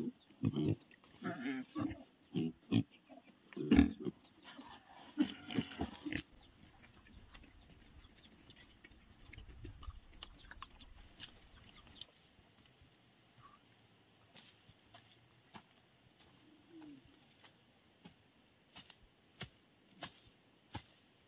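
Domestic pigs grunting, a rapid series of calls for the first six seconds, then quiet with a faint steady high-pitched whine in the background.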